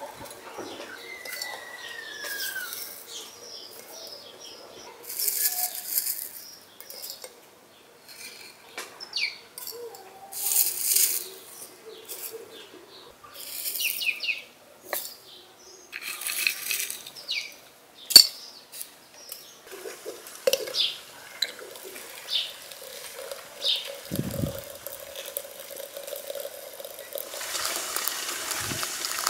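Pinches of dry loose tea, dried rose petals and herbs dropped into a glass teapot, rustling and clicking against the glass in a series of short bursts, with one sharp click partway through and a couple of dull thumps later. In the last couple of seconds water starts pouring from a metal spout into the teapot onto the leaves.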